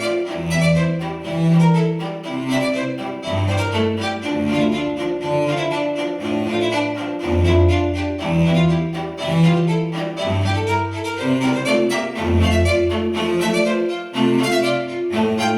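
Background music: string instruments playing a driving, rhythmic piece, with bowed low notes and quick repeated higher notes.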